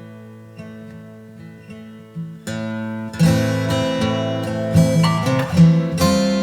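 Background music: acoustic guitar, picked softly at first, then strummed fuller and louder from about halfway through.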